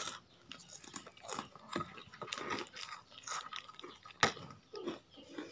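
Chewing and crunching of raw fresh vegetables close to the microphone: a run of small, irregular crunches and clicks, with one sharper click about four seconds in.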